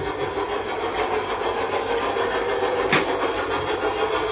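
A steady mechanical hum with a single sharp click about three seconds in.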